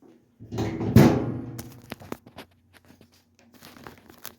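Handling noise as a washer's lid switch is worked free and pulled out of its mount: a loud knock about a second in, then a short rattle and a few sharp clicks.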